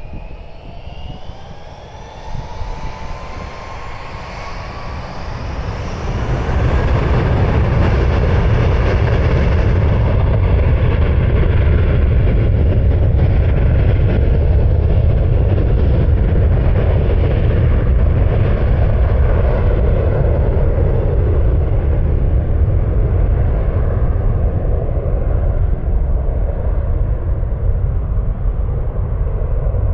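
British Airways Airbus A321-231's IAE V2500 turbofan engines spooling up to takeoff power: a rising whine over the first few seconds, then, about six seconds in, a loud steady rumble through the takeoff roll.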